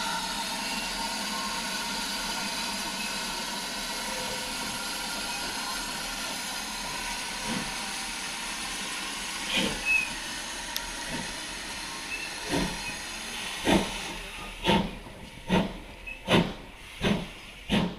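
GWR steam locomotive hissing steadily with escaping steam, then starting away: exhaust beats begin about ten seconds in and come faster and louder as it gathers speed.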